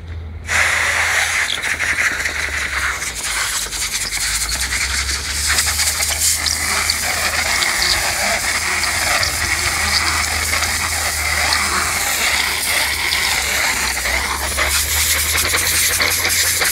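Compressed air hissing steadily from an air-hose nozzle as it blows dust out of a truck's air filter element, starting about half a second in. A steady low hum runs underneath.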